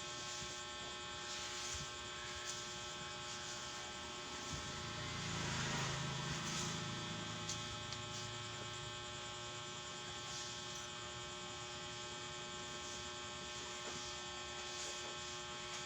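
A steady electrical hum made of several fixed tones, with faint scattered clicks and a brief, slightly louder low muffled sound about five to seven seconds in.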